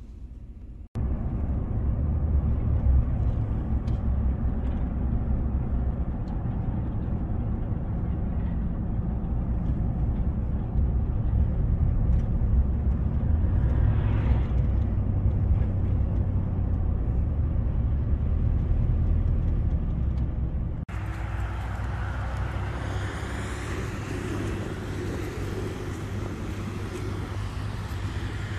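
Steady low rumble of engine and tyres heard inside a pickup's cab while driving on a snowy road. About twenty seconds in, the sound cuts to open air with road traffic going by.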